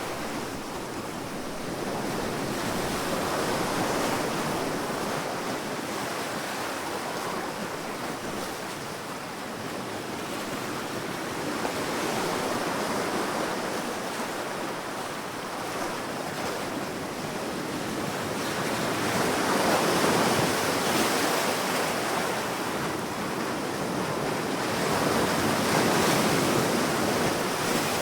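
Sea waves breaking and washing up on a sandy beach: a continuous surf hiss that swells and ebbs slowly, with the loudest surges about 20 seconds and 26 seconds in.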